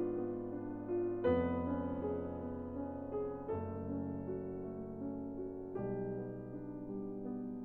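Background piano or electric-piano music, a slow run of held chords that change every two seconds or so.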